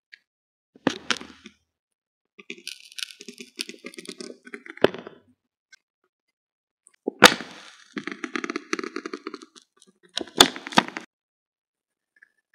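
Ballpoint pen writing on a scrap of lined paper, heard close up: stretches of quick scratchy strokes broken by several sharp ticks, with silent gaps between.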